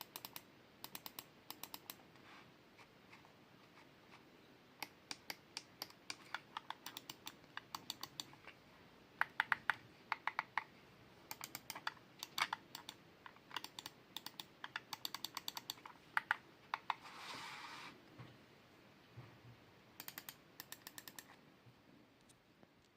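Lenovo M210 wired mouse buttons being clicked, many sharp clicks in quick runs with short pauses between. A brief rustle, like the mouse being scuffed or handled, comes partway through.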